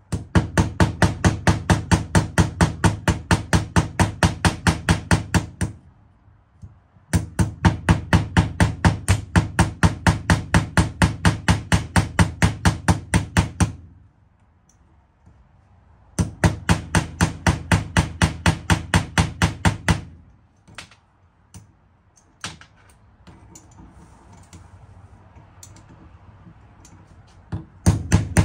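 A small ball-peen hammer tapping rapidly on the pivot of a steel jeweler's hand vise that rests on a steel block, peening the joint. The strikes come quick and even, about five a second, in three long runs with short pauses between. After the third run come a few scattered lighter taps, and a fast run starts again near the end.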